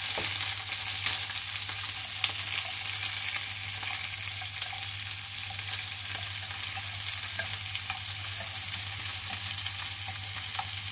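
Cauliflower and bell pepper pieces frying in hot oil: a steady sizzle with scattered light clicks, over a low steady hum.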